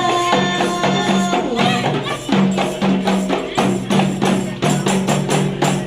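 Rebana ensemble playing an instrumental passage of a sholawat song: fast, even frame-drum strokes over a repeating bass line. A held note sounds early on before the drumming fills in.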